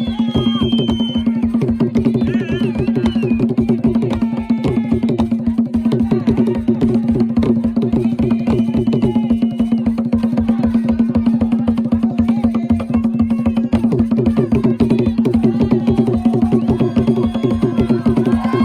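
Fast, steady drumming for a Gule Wamkulu dance, the strokes coming many to the second over a steady low tone. Voices call out over it at the start and again near the end.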